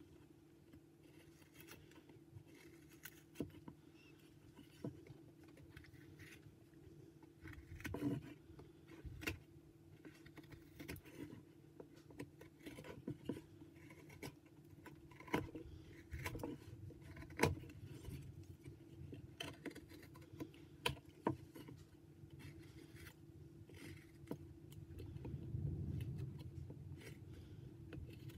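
Carving knife whittling white pine in short, irregular cuts, each a faint scrape or click as the blade slices off a chip, over a steady low hum.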